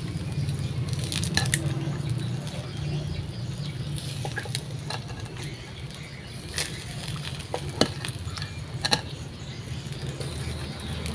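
Whole fish in a wire grill basket sizzling over charcoal as spice paste is brushed onto it, with a few sharp clicks scattered through and a steady low hum underneath.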